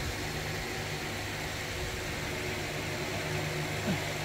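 A steady low mechanical hum at an even level, with a brief faint sound near the end.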